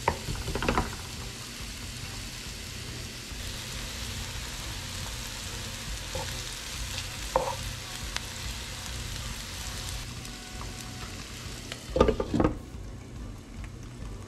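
Onions and other chopped vegetables sizzling in oil in a nonstick frying pan, scraped and stirred with a wooden spatula. About twelve seconds in a glass lid clatters onto the pan, and the sizzle turns much quieter under it.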